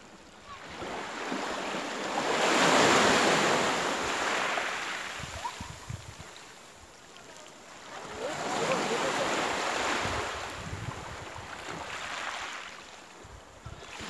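Sea waves breaking and washing up a shingle beach: two swells of surf, each rising and falling over a few seconds, about six seconds apart.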